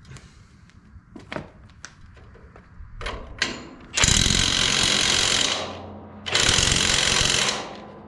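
Impact wrench run in two bursts of about a second and a half each, driving a bolt tight, after a few light knocks.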